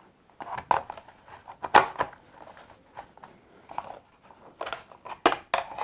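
Hard plastic playset parts being handled and fitted together: a run of irregular clicks and knocks, the loudest about two seconds in and again near the end.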